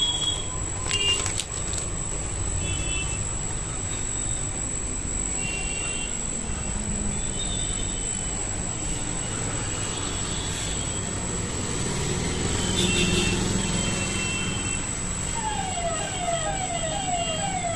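Steady street traffic rumble with a few short high beeps. Near the end a siren starts, its pitch sweeping up over and over, about twice a second.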